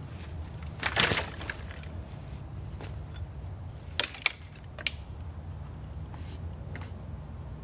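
An armful of dry pine branches dropped onto a pile with a brittle crash about a second in, then two sharp cracks of dry wood being handled a little after halfway, a softer one just after, and a few faint twig ticks near the end.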